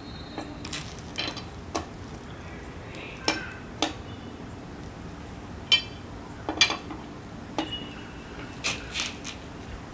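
Metal wrench working a wheel's lug nut tight by hand: irregular sharp metallic clicks and clinks, a few ringing briefly.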